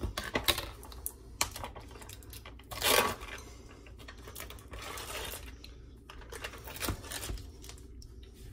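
Plastic lid and seal of a cottage cheese tub being pried and peeled open by hand: scattered plastic clicks and crinkling, with a louder tearing rustle about three seconds in.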